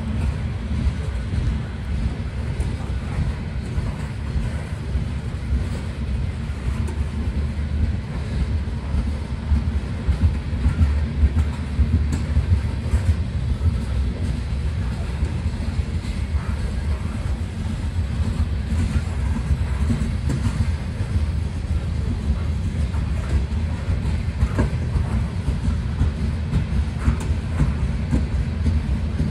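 Freight train of high-sided open-top gondola cars rolling past close by: a steady low rumble of steel wheels on rail, with scattered faint clicks.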